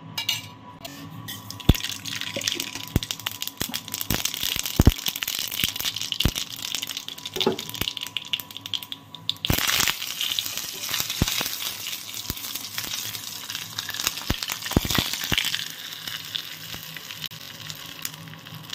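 Seeds crackling and spluttering in hot oil in a small aluminium tempering pan, with a few knocks of the pan. About halfway through, a louder burst of sizzling comes as curry leaves hit the oil.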